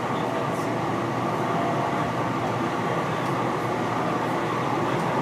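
Steady running noise of a passenger train heard from inside the car, as a freight train's coal gondolas pass close alongside.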